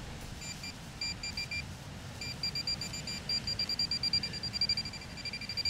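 Handheld metal-detecting pinpointer beeping at one high pitch. A few short beeps come first, then a rapid, quickening train of beeps as the probe closes in on a shallow metal target.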